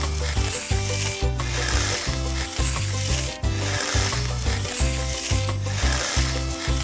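Background music with a steady, repeating bass line, overlaid by a hissing, scraping noise that swells and breaks off about every two seconds.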